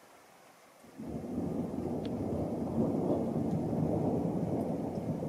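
Thunder: a clap breaks suddenly about a second in and goes on as a long, deep rumble, loudest around three seconds in.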